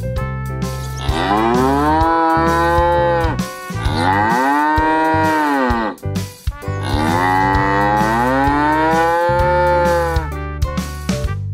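Cow mooing three times, long calls that rise and then fall in pitch, over quiet background music.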